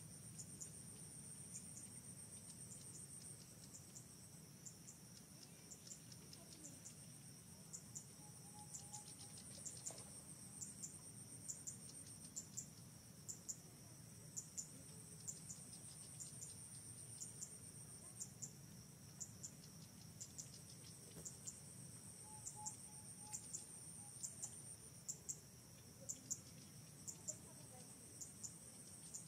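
Faint insect chorus: a high trilling drone that comes and goes in long stretches, over regular sharp chirps at about two a second.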